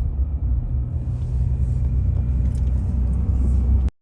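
Steady low rumble of road and engine noise inside a moving car's cabin, cutting off abruptly near the end.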